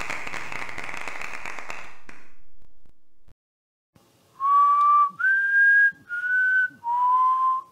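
A person whistling four long notes: the second is the highest and the last the lowest. Before it, a steady rushing noise fades out about two seconds in.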